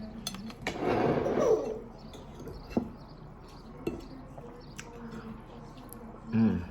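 Sounds of eating a meal: a few light clicks of cutlery against a plate, with a short voice-like mouth sound about a second in and another near the end.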